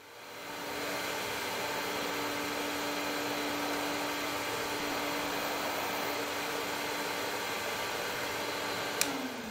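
A steady hissing drone with one held low hum, fading in at the start. Near the end a sharp click, after which the hum drops away in a few falling steps.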